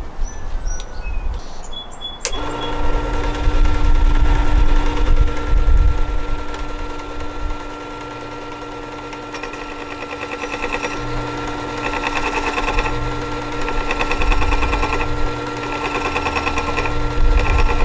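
Work Sharp powered sharpener switching on about two seconds in and running with a steady motor hum. From about halfway through, a steel timber-framing chisel is ground against the spinning abrasive disc in several short passes, each a second or two long, adding a rough grinding sound.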